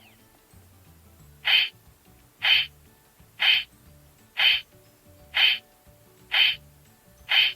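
Electronic sound effect from a CSM Kamen Rider 1 Typhoon transformation belt's speaker: a short chirp-like call repeated evenly about once a second, seven times, starting a second and a half in.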